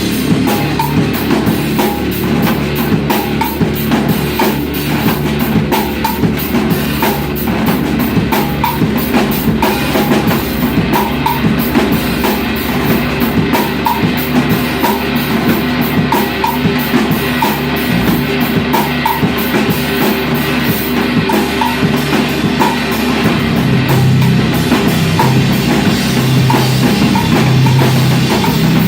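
Rock band playing live on guitar, bass guitar and drum kit, with cymbals keeping a steady beat. The bass swells louder in the last few seconds.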